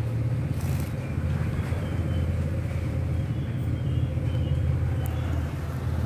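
Steady low background rumble, with a brief rustle about half a second in.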